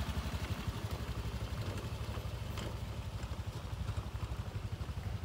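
Small motor scooter engine running steadily, a low rapid pulsing note.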